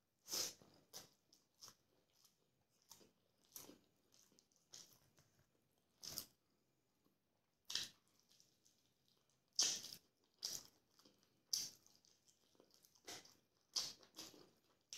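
A person chewing and making wet mouth sounds while eating rice and chicken curry by hand, in short irregular bursts with quiet gaps between them.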